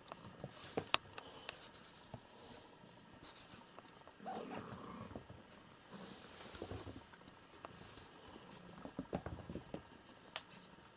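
Cats playing and tussling on a rug: soft pattering and scuffling with scattered small taps, a louder rustle about four seconds in and a cluster of taps near the end.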